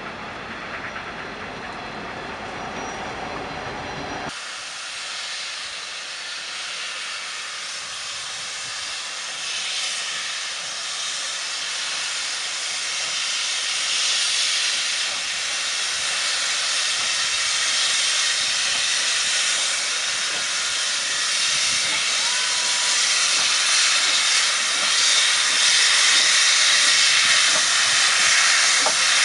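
A train's coaches rolling past for about four seconds. Then a sudden change to the hiss of steam blowing from the open cylinder drain cocks of a class 19D steam locomotive moving slowly, growing steadily louder as it comes closer.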